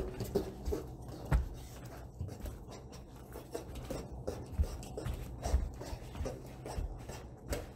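Scattered soft thumps, scuffs and rustling from a person practising a stick routine: footfalls, the stick being swung and handled, and clothing moving.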